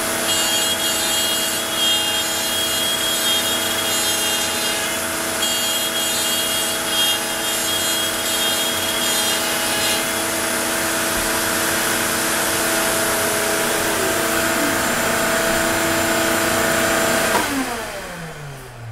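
Onefinity CNC router spindle running with a steady whine, then spinning down about a second and a half before the end, its pitch sliding steeply down as it stops at the end of the cut.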